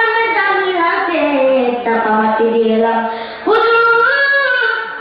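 A child's voice singing unaccompanied, in a slow line of long held notes that slide down and up between them.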